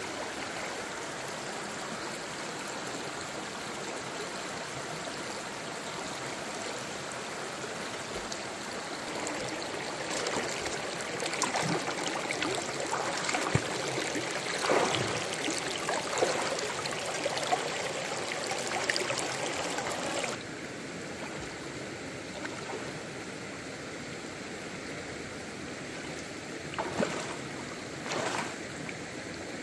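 Shallow stream running steadily over rocks, with splashing footsteps of a person wading barefoot through the water. The splashing is busiest through the middle, the water sound drops suddenly, and two more splashing steps come near the end.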